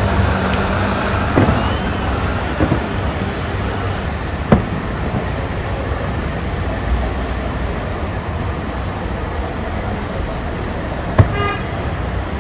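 Fireworks display going off: a continuous low rumble of distant bursts with a few sharper bangs, the loudest about four seconds in and another near the end.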